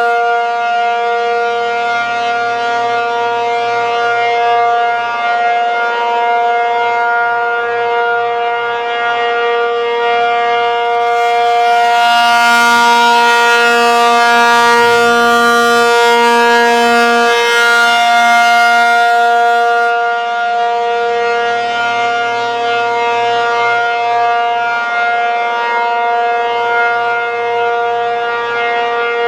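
ASC T-135AC outdoor warning siren sounding a Full Alert, one steady tone held without rising or falling in pitch. About a third of the way in it grows louder and brighter, then eases back a little later on.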